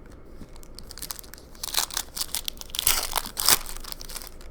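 Crinkling and crackling of a trading-card pack's wrapper being handled and opened, starting about a second and a half in and loudest near the end.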